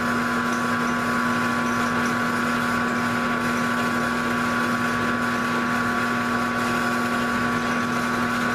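Grizzly G0705 gear-head mill/drill running steadily, a constant motor hum with a high gear whine over it.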